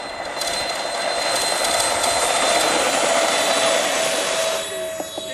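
Electric ducted fans of a radio-controlled Airbus A380 model running up for the takeoff roll: a steady whine over a broad rush of air. It swells about half a second in and fades near the end.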